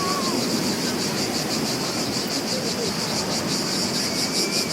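Cicadas buzzing in a high, pulsing chorus that grows more sharply pulsed near the end, over the steady wash of sea waves.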